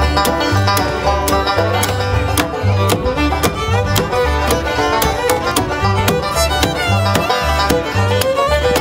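Bluegrass trio playing: a fiddle carries the melody over rolling banjo picking, with an upright bass marking the beat in steady low notes.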